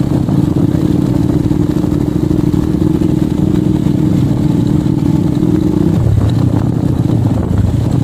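Motorcycle engine running as the bike rides along a dirt track, its note steady until about six seconds in, when the revs drop sharply.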